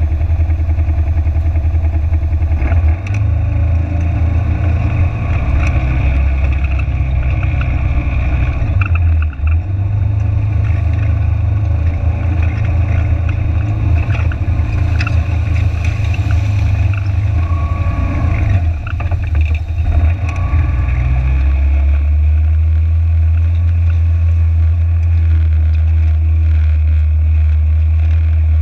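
Side-by-side UTV's engine running under load, a loud low drone that steps up and down in pitch a few times as it drives over gravel and through shallow floodwater, with the rush of water and gravel under the wheels.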